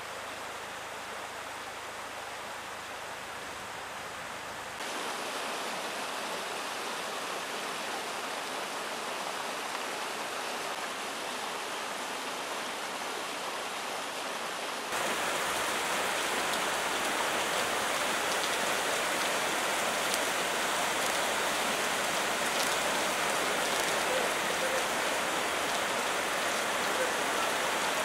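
Floodwater rushing down a street in heavy rain, a steady rushing hiss of moving water and rain. It gets abruptly louder in two steps, about 5 seconds and 15 seconds in.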